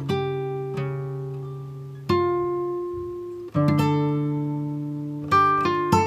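Background music: acoustic guitar playing slow chords, each left to ring and fade before the next is struck about every two seconds.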